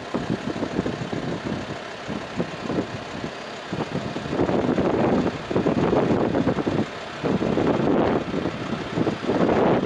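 Twin jet engines of an Airbus A321 at takeoff power during the takeoff roll: a loud rumble that swells and fades in surges, growing louder from about halfway through as the aircraft approaches.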